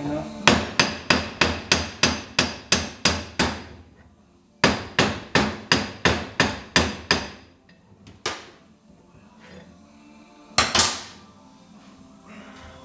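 Hand hammer striking the steel rod-end parts of an Allis-Chalmers loader hydraulic cylinder with ringing metallic blows, to drive out a tight rod and gland. The blows come in a quick run of about a dozen at roughly four a second, then a run of about nine, then two separate harder blows. The assembly is coming apart hard, which the mechanic takes as a sign the seals are still intact.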